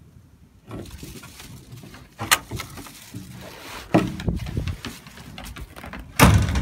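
Three sharp knocks on wooden boards over low rustling, the loudest near the end.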